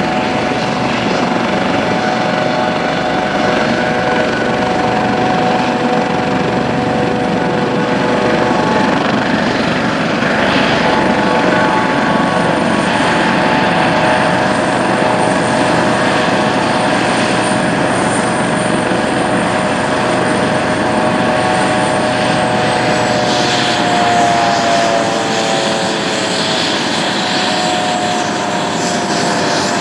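Airbus AS365 N3 Dauphin twin-turboshaft helicopter running steadily, its turbines and rotors giving a constant whine over a heavy rushing noise. About 23 seconds in, the whining tones drop in pitch.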